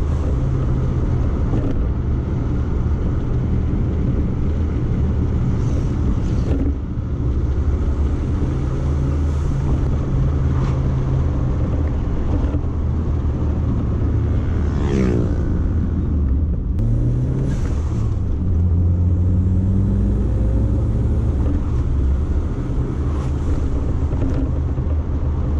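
In-cabin sound of a Toyota MR2's 3S-GTE turbocharged four-cylinder engine at a cruise, a steady low engine drone with road and tyre noise. The engine note shifts and rises briefly about two-thirds of the way through, and there is a short sweeping sound a little before that.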